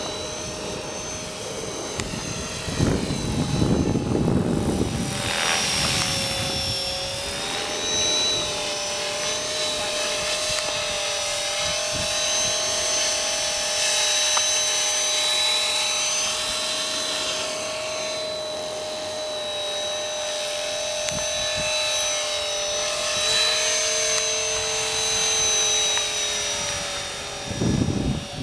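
Radio-controlled model helicopter flying a circuit: a steady high motor whine over the whir of the rotor blades, the pitch sagging slightly and recovering as it manoeuvres. A brief rush of noise comes about three seconds in.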